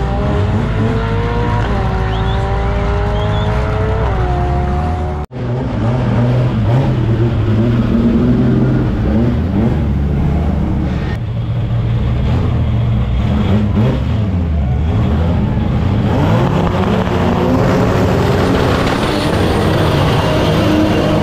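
A car's engine pulls hard away down a drag strip, its pitch climbing, dropping at an upshift about two seconds in, then climbing again to a second shift. After an abrupt break, a Chevrolet Opala Comodoro's engine is held at high revs during a burnout, with its rear tyre spinning and smoking.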